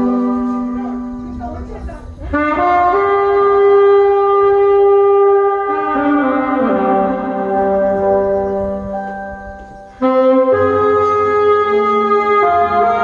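Two saxophones playing a slow melody in long held notes. The phrase fades out about two seconds in and again shortly before ten seconds, and the playing comes back in suddenly about ten seconds in.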